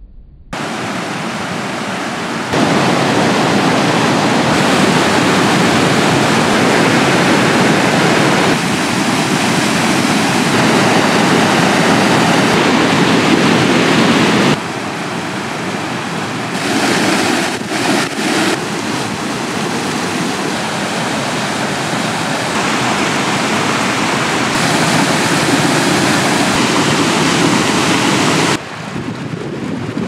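Steady rushing and roaring of a rocky brook's cascades, white water tumbling over stones. The level steps up and down abruptly several times.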